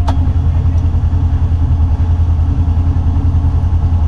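ATV engine idling steadily, with a sharp click right at the start.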